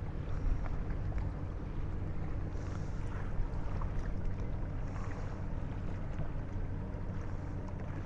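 Boat engine running steadily as the boat moves, a low even hum with wind noise on the microphone.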